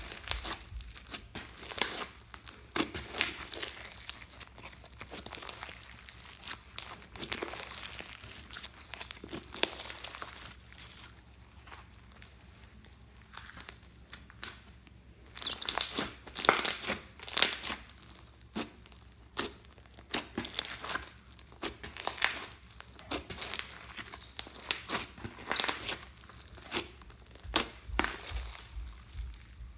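Bead-studded slime being stretched, folded and squeezed by hand, giving off sticky crackling in irregular bursts, with a louder stretch of crackles about halfway through.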